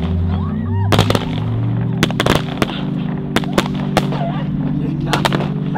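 Fireworks going off: a run of sharp, irregularly spaced bangs and pops, over low sustained droning tones.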